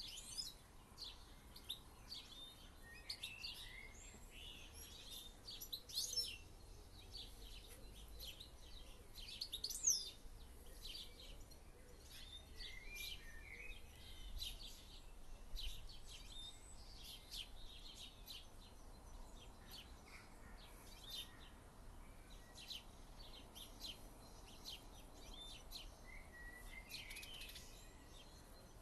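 Faint birdsong: many short, high chirps and calls from several birds, scattered irregularly, one louder call about ten seconds in.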